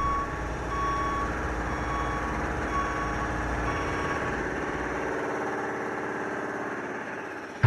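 Heavy construction vehicle's backup alarm beeping about once a second, growing fainter, over the running engine of the equipment.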